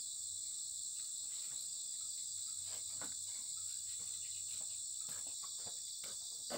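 Steady, high-pitched chorus of insects trilling, with a few faint scattered taps.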